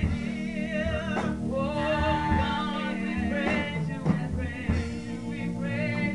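Live gospel praise and worship music: a singer's voice wavering with vibrato over held keyboard chords, with occasional drum hits.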